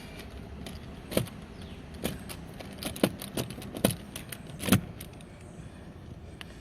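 Irregular clicks and light metallic clatter as a hand tool backs a screw out of a car's plastic interior door panel, with about seven sharper clacks in the first five seconds.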